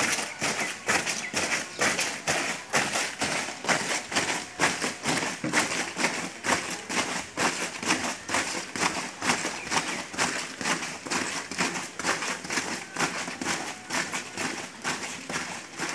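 A squad of cadets marching in step, their boots striking the ground together in a steady beat of about two steps a second.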